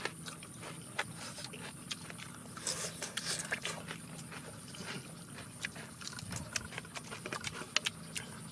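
Close-up chewing and lip-smacking of people eating cooked pork skin with fresh vegetables: irregular wet smacks and clicks, several a second at times.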